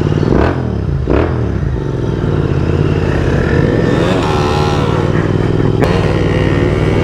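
Motorcycle engine pulling away, rising in pitch through the first second or so, then running steadily at riding speed.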